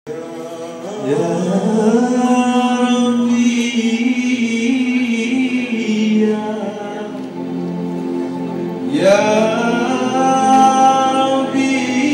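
Man singing karaoke into a handheld microphone, amplified through a PA speaker with musical backing, holding long notes. A new, louder phrase starts about nine seconds in.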